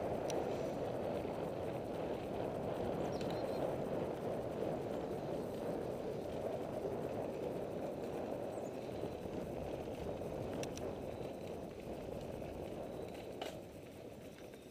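Steady rumbling noise of riding along a dirt trail, with a few faint clicks, dropping off sharply near the end.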